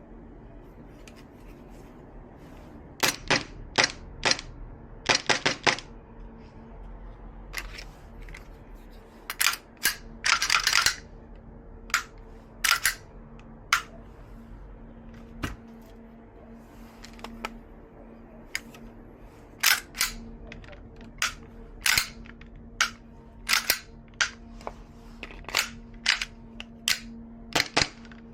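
Gas blowback airsoft Glock 17 pistols being shot, each shot a sharp clack of the gas discharge and the slide cycling, fired singly and in quick short strings at irregular intervals.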